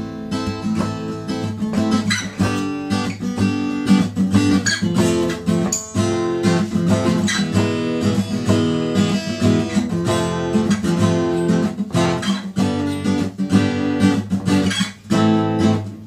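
Yamaha F310 steel-string acoustic guitar being played, a continuous run of ringing chords. The playing stops at the very end.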